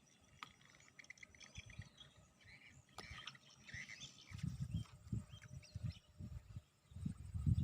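Faint bird chirps and twittering, a quick run of short repeated notes in the first half, with irregular low rumbling noise in the second half.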